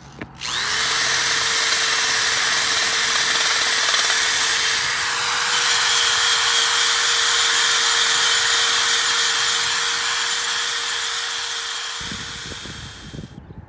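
Corded electric drill spinning a wire wheel brush against a rusty steel engine fan blade, stripping the rust: a steady scraping rasp over the drill motor's whine. It starts about half a second in, eases off near the end and stops just before the end.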